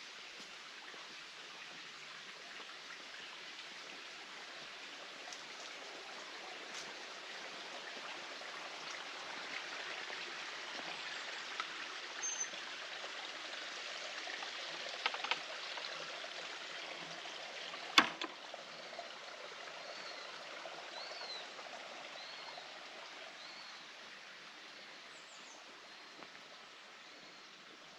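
Steady rush of running water that swells and then fades. A single sharp click comes about two-thirds of the way through, followed by a few short, high chirps.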